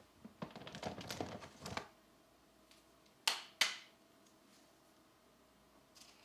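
Pencil scratching quickly across paper in a run of short strokes for about a second and a half. A little over three seconds in come two sharp clicks, about a third of a second apart, and faint scratching returns near the end.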